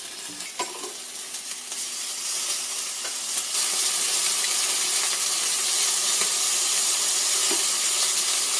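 Chicken thighs sizzling on the hot nonstick grill plate of a Hamilton Beach electric indoor grill: a steady hiss that grows louder over the first few seconds, then holds. A few light clicks of metal tongs come as the pieces are turned.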